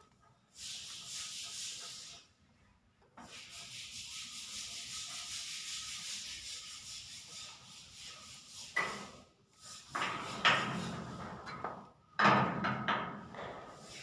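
A paintbrush scrubbing in a plastic watercolour palette to pick up paint: a steady scratchy rubbing in two stretches, the second about five seconds long. It is followed by louder, irregular handling sounds in the last few seconds.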